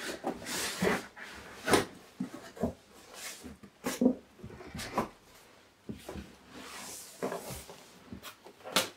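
Cardboard being handled: a laptop's retail box scraping and sliding out of its cardboard shipping carton, with irregular knocks and thuds as the cardboard flaps and boxes bump together.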